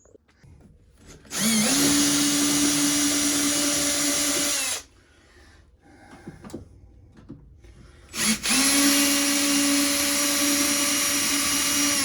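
Power drill running in two bursts of about three and a half seconds each, each rising briefly to a steady whine, as it backs screws out of a trailer panel.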